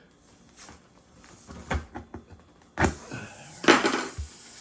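Clunks and knocks of a flat tire and a plug-kit tool being handled, with a heavier knock about three seconds in; from then on a steady hiss of air escaping through the tire's puncture.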